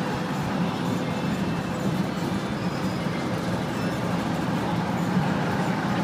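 Cabin ride noise of a 2007 Blue Bird All American RE bus under way, heard from the front of the cabin: a steady low drone from its rear-mounted Cat C7 diesel mixed with road and body rumble.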